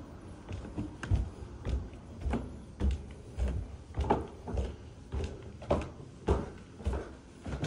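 Footsteps climbing carpeted stairs and walking on, a dull thud about twice a second with light knocks on some steps.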